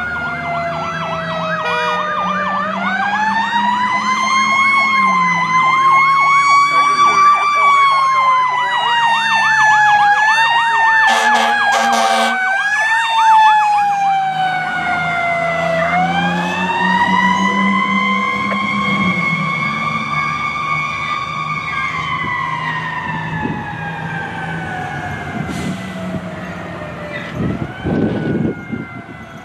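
Pierce fire engine passing with its mechanical siren winding up and slowly coasting down twice, a faster warbling siren sounding alongside for a while. Short air horn blasts come around the middle, over a steady low engine rumble.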